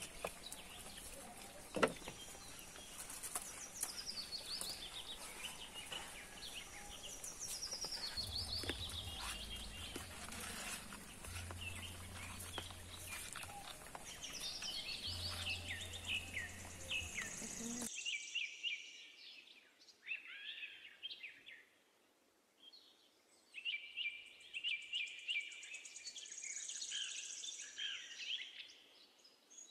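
Birds singing: repeated chirps and short descending trills, with a sharp click about two seconds in and a low hum partway through.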